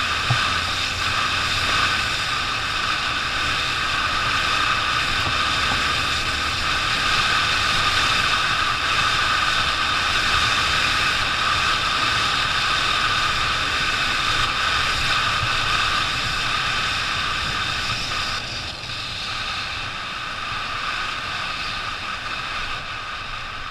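Motorcycle riding at a steady speed: a constant engine hum with wind and road noise. It eases off a little near the end as the bike slows.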